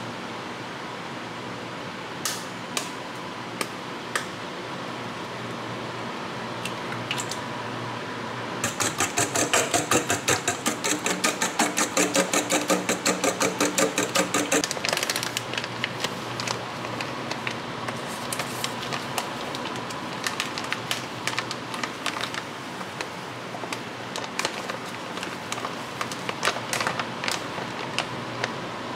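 A fork beating eggs in a stainless steel bowl: a fast run of clinking strokes, about six or seven a second, lasting some six seconds in the middle. Scattered clinks and taps of utensils on the metal bowl come before and after, over a faint steady hum.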